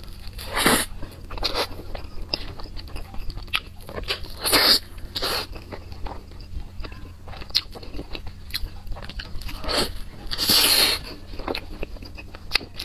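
Close-miked eating: bites into a soft cream cake with a thick yellow topping and chewing, coming in irregular noisy bursts, the loudest near the middle and a longer one near the end.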